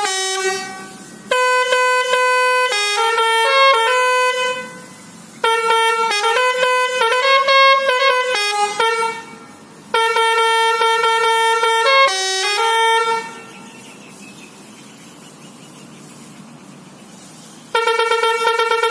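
Lorry's telolet horn, a multi-trumpet musical air horn, playing short tunes of stepped notes in loud bursts of a few seconds each. A quieter pause of several seconds follows in the second half, and the horn starts again near the end.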